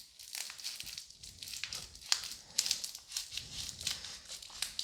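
A shipping envelope being handled and opened: irregular crinkling and rustling of the wrapper, with a few sharper crackles.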